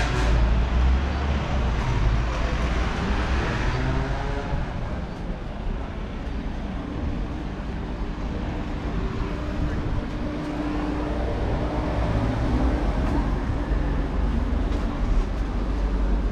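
Motor traffic on a town street. A vehicle passes close in the first few seconds with a rush of tyre and engine noise, then engines keep up a lower, steady rumble.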